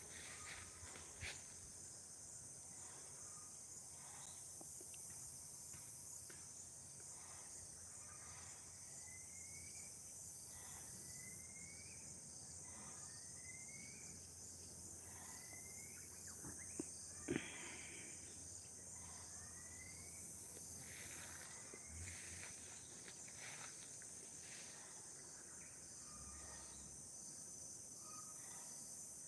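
Faint, steady high-pitched insect chorus in a garden. A bird repeats a short rising call about seven times in the middle, roughly every second and a half. There is one brief knock partway through.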